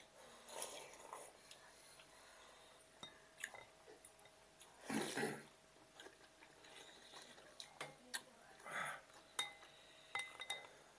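Noodle soup being slurped, loudest about five seconds in, with a few shorter slurps around it. Scattered light clinks of forks and spoons against glass bowls, a few of them ringing briefly near the end.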